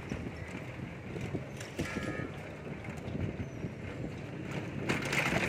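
Street traffic heard from a moving cycle rickshaw: steady clatter and rattling over a low rumble, with wind on the microphone and a louder burst of hiss near the end.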